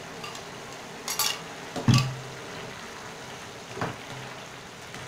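A cooking spoon and bowl knocking against a frying pan a few times as cornflour mixture is poured into a stew and stirred in. The knocks come about one, two and four seconds in, over a steady low background noise.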